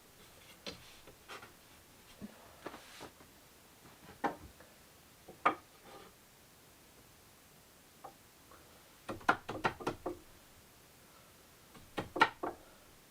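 Scattered knocks and taps of a trimmed wooden support piece being fitted and tapped into place in a wardrobe frame, with a quick run of raps about nine seconds in and another short run about twelve seconds in.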